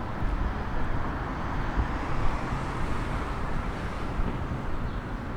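City street ambience: steady traffic noise with the low rumble of passing vehicles.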